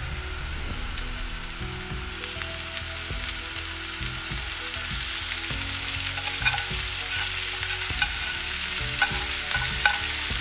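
Potatoes and chicken sizzling in a hot pan as they are stirred, a steady sizzle that grows a little louder, with a utensil scraping and tapping against the pan from about six seconds in.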